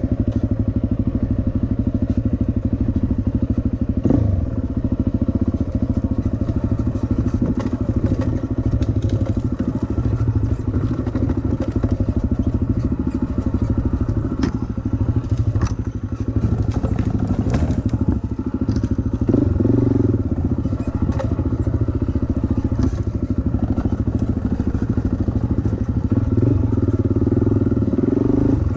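Dirt bike engine running close to the microphone as the bike rides a rough forest trail, revving up and easing off several times. A few sharp knocks and clatters come from the bike over the bumps.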